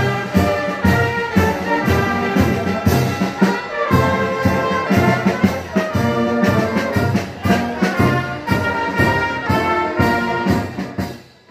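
Brass band playing a tune with trumpets and trombones over a steady beat, fading out near the end.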